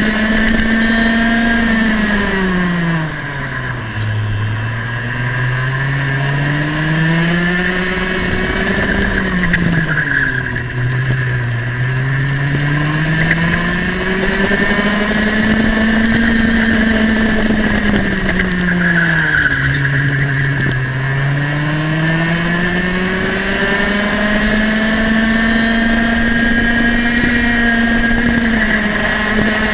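Racing kart's two-stroke engine at high revs, heard from onboard. Three times it drops sharply as the kart slows for a corner, then climbs steadily back up to full revs.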